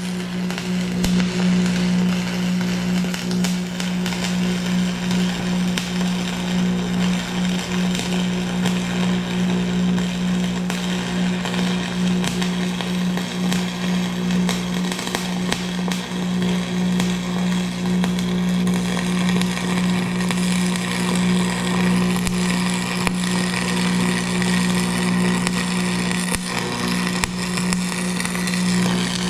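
Angle grinder running at a steady high speed and grinding on steel: a constant motor whine under a harsh, crackly grinding hiss.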